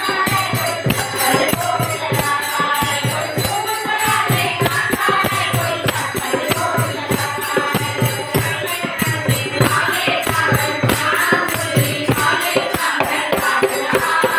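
Voices singing a Hindu devotional bhajan (kirtan) to a steady beat of hand drumming, with jingling percussion keeping time.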